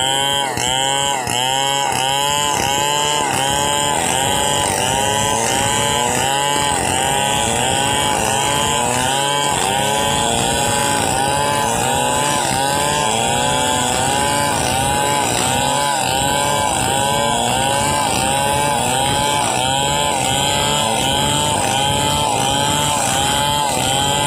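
Two Stihl chainsaws cutting lengthwise into timber planks, both engines held at high revs. Their pitch dips and rises in quick, regular arcs, about twice a second, as the bars work through the wood.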